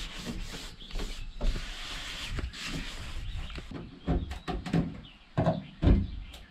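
Scraping and rubbing, then a run of knocks and thumps, from a van's interior wall panels being pulled and worked loose.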